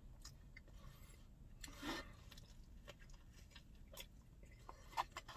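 A person chewing and biting into a cheesesteak sandwich, heard faintly: scattered soft mouth clicks and smacks, with a short breathy sound about two seconds in.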